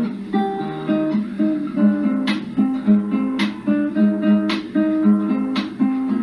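Background music led by an acoustic guitar playing a plucked melody, with a sharp accent about once a second.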